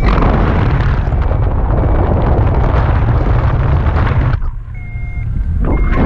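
Loud wind buffeting the microphone of a camera on a flying paraglider. About four and a half seconds in the wind drops away for a moment and the high beeps of a flight variometer come through.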